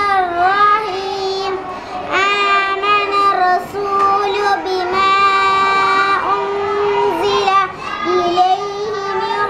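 A young girl reciting the Quran aloud in a melodic chant, holding long steady notes with small turns in pitch and short pauses for breath between phrases.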